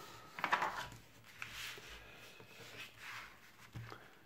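Pages of a paper model-kit instruction booklet being turned and smoothed flat by hand: crinkling paper rustles, loudest about half a second in, with a few softer rubs after.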